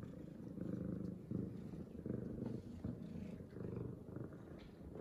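F2 Savannah cat purring steadily, the purr coming in pulses with short dips between them as she breathes in and out: the purr of a happy cat.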